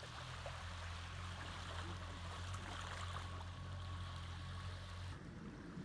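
Outboard motor of a small open fishing skiff running steadily at a distance as a low hum under a watery hiss; the hum stops abruptly near the end.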